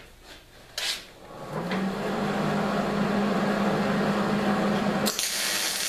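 MIG welding: a sharp click about a second in, then the welding arc crackles and sizzles steadily over a low hum as steel is welded together, turning to a brighter hiss about five seconds in.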